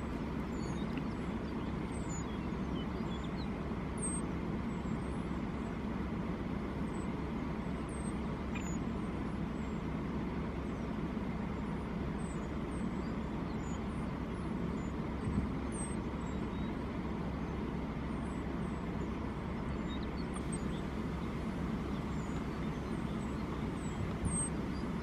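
Steady low rumble of outdoor background noise, with faint, short high-pitched chirps scattered through it.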